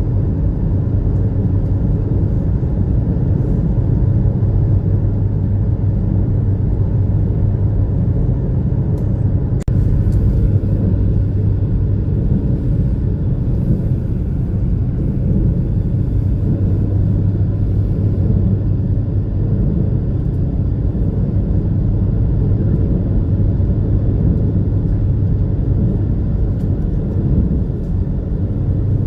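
Steady low drone of the high-speed ferry's engines and hull running at speed, heard from inside the passenger cabin. There is a single brief click about ten seconds in.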